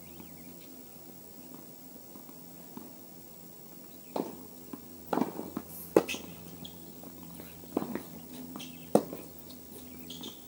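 Tennis ball struck by rackets and bouncing on the court in a rally: a run of sharp pops starting about four seconds in, roughly a second apart.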